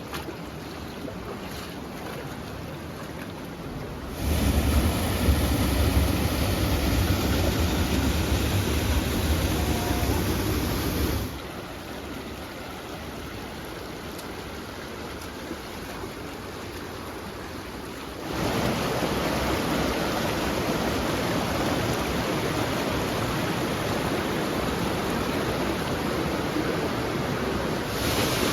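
Steady rush of creek water and waterfalls in a slot canyon, heard in several clips that switch abruptly every few seconds. The loudest clip, from about four to eleven seconds in, has a heavy deep rumble.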